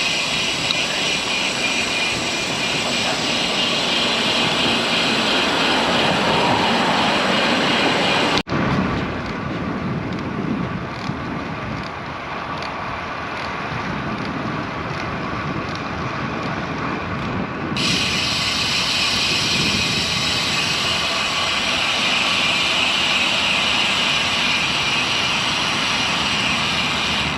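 Steady rush of wind and road noise while riding a bicycle, with motor traffic sounds. The sound changes abruptly twice, about a third of the way in and again about two thirds in.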